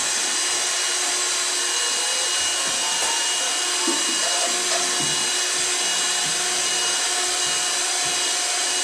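Electric hand mixer running steadily, its beaters whirring through batter in a bowl.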